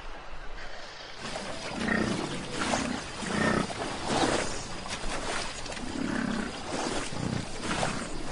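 An American bison bellowing: a series of about seven low, drawn-out calls, starting about two seconds in.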